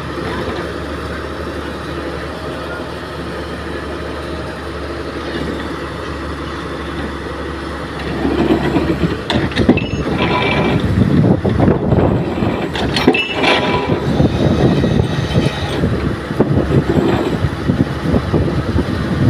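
Pile-driving rig's engine running steadily, then growing louder and rougher about eight seconds in, with a few sharp metallic knocks.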